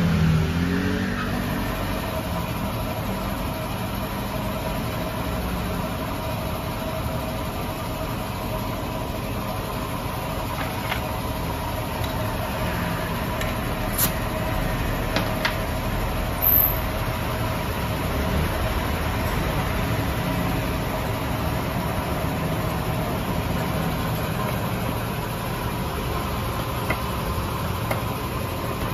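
A steady mechanical hum with a couple of faint steady tones in it, broken by a few sharp metallic clicks around the middle.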